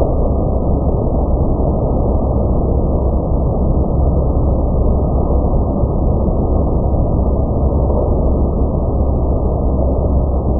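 Car wash machinery running: a steady, loud rushing noise with a deep rumble underneath, unbroken throughout.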